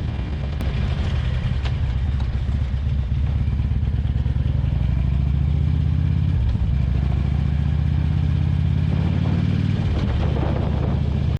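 Harley-Davidson Road King V-twin engine running under way, growing louder about three seconds in, with a brief dip about six and a half seconds in before it carries on steadily.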